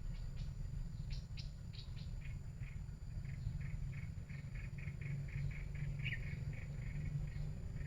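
A small animal giving a rapid run of short, high chirping squeaks, about three a second, over a steady low rumble.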